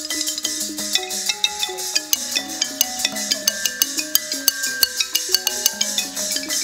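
Thai piphat ensemble playing: a quick, stepping xylophone-like melody over a fast, steady beat of sharp metallic clicks.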